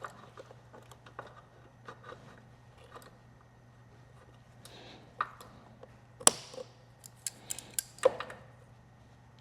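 Hand tools and motorcycle parts being handled during disassembly: scattered light clicks and taps, with a run of sharper knocks about five to eight seconds in.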